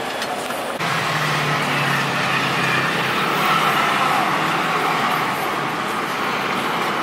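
Steady urban street noise of passing road traffic and general bustle, with a low hum underneath. It steps up a little louder just under a second in, then holds even.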